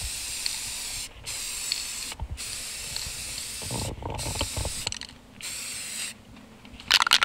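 Aerosol spray paint can spraying in a series of short hissing bursts with brief pauses between them. Near the end the can is shaken and its mixing ball rattles.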